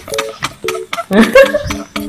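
A person laughing in short bursts, then a louder stretch of laughter or voice about a second in, with a few light clicks from hands handling the camera.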